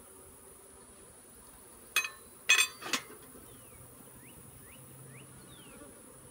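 Three sharp knocks about two to three seconds in as a wooden brood frame is worked loose and knocks against the wooden nuc box, over a steady high-pitched insect drone and the low hum of honeybees.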